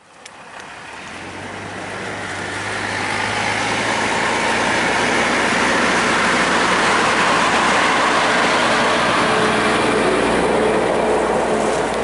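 Semi truck hauling a silage trailer, driving over a dirt field path and passing close by. Its engine and rolling noise grow louder over the first few seconds, then hold steady as it goes past.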